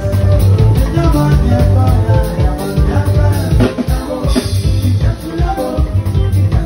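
Music with a drum beat, playing loudly throughout.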